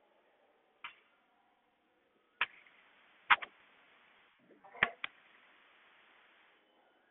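About six sharp taps or knocks spread over four seconds, two of them in quick pairs, with faint hiss between them.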